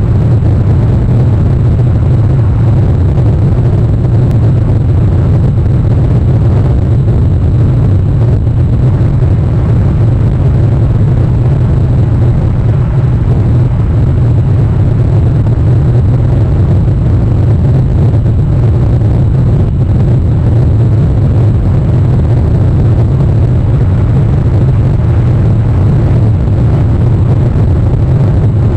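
A loud, steady low rumble of noise that does not change, with a faint high-pitched whine above it.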